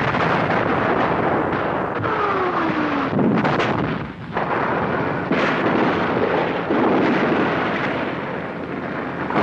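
Battle sounds of artillery fire and shell explosions over a continuous din of gunfire: a falling whistle about two seconds in, then a blast about a second later and another about two seconds after that.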